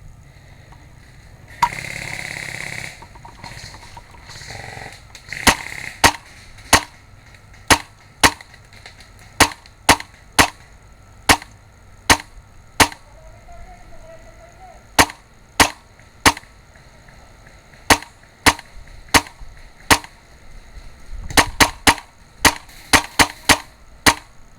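Airsoft shots from a G&G HPA (compressed-air) gun: single sharp pops roughly one a second, then a quicker string of about nine shots near the end. A brief burst of noise comes about two seconds in.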